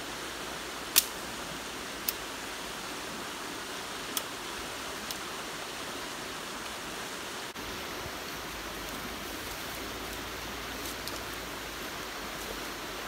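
Flowing stream running steadily, with a few sharp clicks about one, two and four seconds in, the first the loudest.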